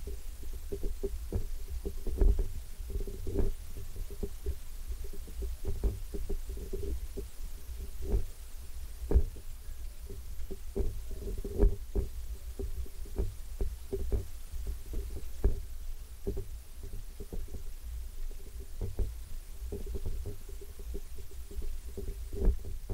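Handling noise from a hand-carried 360 camera's microphone: a steady low rumble with many irregular dull knocks, and a faint steady hum that comes and goes.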